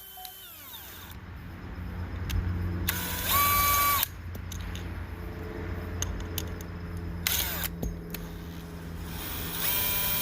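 DeWalt DCD996 cordless drill motor running in three short bursts while driving screws: each time the whine rises quickly to a steady pitch, the longest lasting about a second. A steady low hum runs underneath.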